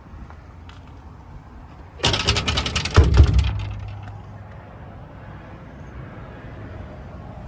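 A metal door on the service truck being handled: a loud clattering rattle starts about two seconds in, with a heavy slam a second later and a brief low hum after it.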